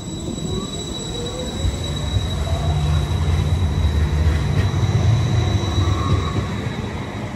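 Hiroshima Electric Railway 5000-series Green Mover low-floor tram running past on its rails: a heavy wheel-and-rail rumble that builds, is loudest as the cars go by, and fades near the end, with a whine rising in pitch in the first two seconds.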